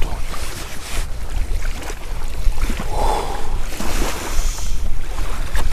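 Wind buffeting the microphone, a steady low rumble, with a brief louder noise about three seconds in.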